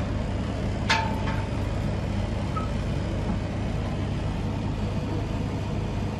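Steady low background rumble with a constant hum, and a single sharp click followed by a short ringing tone about a second in.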